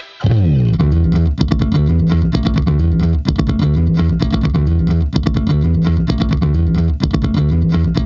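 Background music: a bass-guitar and guitar track with a steady beat, coming in after a brief gap at the very start.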